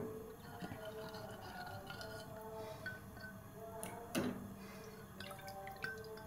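Blocks of palm sugar dropped by hand into a pot of water, landing with a plop and splash, the clearest about four seconds in, with lighter knocks between.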